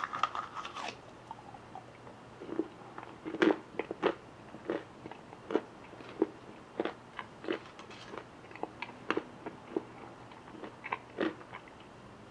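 A person eating a bite of a Hershey's chocolate nugget with almonds: a crackly bite at the start, then separate crunches from chewing the almond pieces, about one or two a second, stopping about a second before the end.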